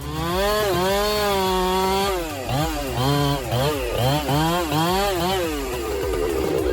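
Chainsaw engine at high revs for about two seconds, then revving up and down in quick cycles about twice a second, turning rougher and noisier near the end.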